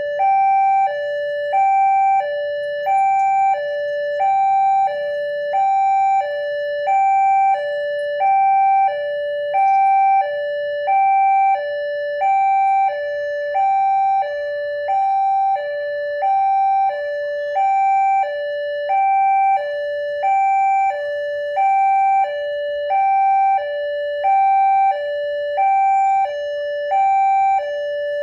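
Indonesian railway level-crossing alarm sounding its two-tone warning: a higher and a lower tone alternating evenly, about one high-low pair a second, signalling that a train is approaching.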